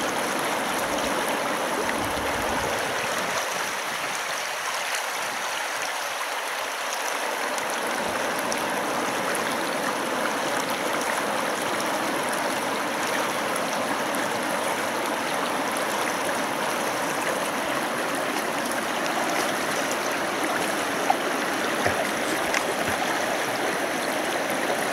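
Steady rushing of a fast taiga river's water.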